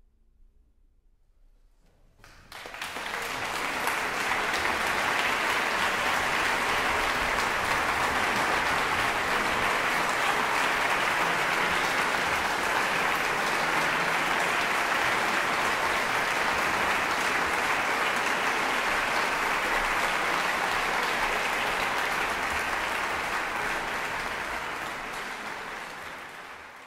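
Concert audience applauding at the end of a live orchestral performance: a hush of about two seconds, then the applause breaks out, holds steady, and fades out near the end.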